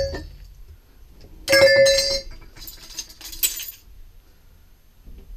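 Loose metal parts clinking and rattling: a loud ringing clatter about a second and a half in, then lighter clinks for about another second.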